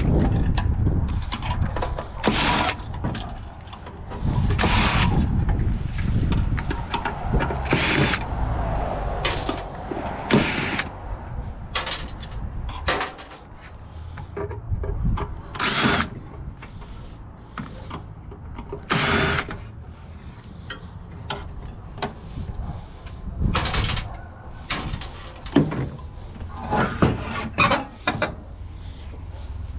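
Metal parts of a gas hot water unit being worked apart by hand and with tools: repeated sharp clanks and knocks of sheet metal and fittings, over a rumbling scraping and handling noise.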